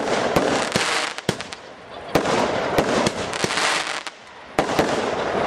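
Fireworks display: a string of sharp bangs with dense crackling between them, in waves with brief lulls about a second and a half in and about four seconds in.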